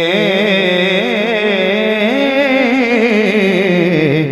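A man's voice sings a long wordless melismatic phrase of a Punjabi devotional manqabat through a microphone and PA. The pitch wavers in ornaments, climbs and then sinks back, and breaks off near the end.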